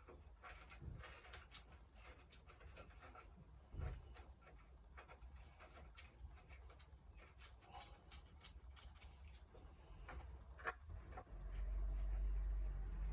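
Faint scratchy rubbing with a few light clicks, the sound of oil being scrubbed off a metal power steering pump bracket by hand. A low steady hum comes in near the end.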